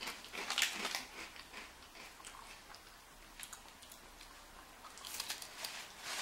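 Crunching of glazed senbei rice crackers being bitten and chewed close to the microphone. The crisp cracks are thick in the first second and again in the last second or so, with only scattered chewing in between.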